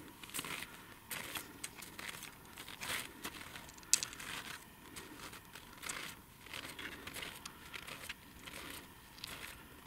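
Footsteps crunching in crusted snow, uneven and about one a second, with one sharper click about four seconds in.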